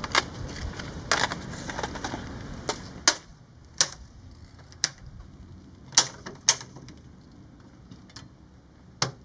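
Sharp metallic clicks and taps, about nine at irregular intervals, from hands working latches and access panels on the underside of an A-10 during a pre-flight walkaround check. Light background noise drops away about three seconds in.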